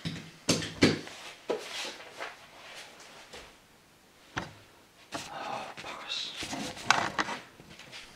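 Handling noise of a camcorder on its stand being picked up and moved. There are a few sharp knocks in the first two seconds and another about four seconds in, then rubbing and clicks through the second half as the camera is carried.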